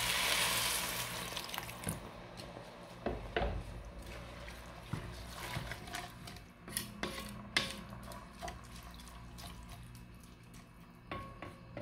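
Coconut milk pouring into a pot of rice and vegetables, a steady splashing pour that fades out about two seconds in. Then a wooden spatula stirs the mixture, with scattered light knocks and scrapes against the enamelled pot.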